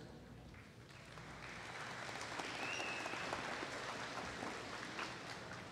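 Audience applauding, building about a second in and fading toward the end.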